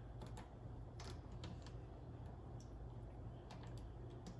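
Faint, irregular light clicks and taps from small parts and tools being handled at a mini lathe, over a low steady hum.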